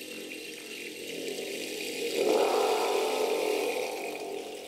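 Rainstick being tipped, its beads trickling down inside in a steady rattle. The rattle swells about halfway through and fades toward the end.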